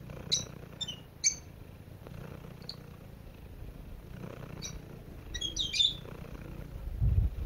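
Domestic cat purring steadily while being stroked, a low rough rumble that swells near the end. Short high bird chirps sound over it several times, the loudest two in the first second and a half and a cluster near the six-second mark.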